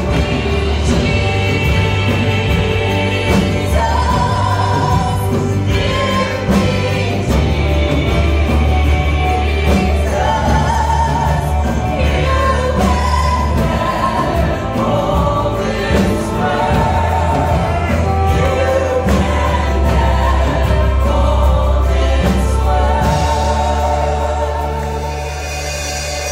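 Church praise team of men and women singing a gospel worship song together over a live band with a steady bass line. The music softens near the end.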